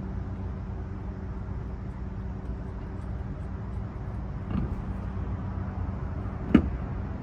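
A steady low hum, with two short clicks, the second and louder one near the end, as lug nuts are handled onto the spare wheel's studs.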